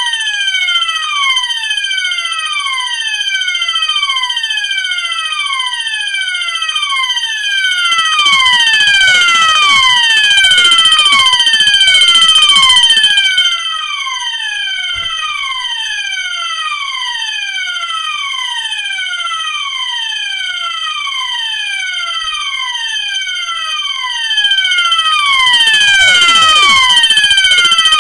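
A fire alarm system in full alarm, with several notification appliances sounding together: a horn repeating a falling sweep tone over and over, a steady high-pitched horn tone, and an electric fire bell ringing. The bell is loudest from about 8 to 13 seconds in and again near the end.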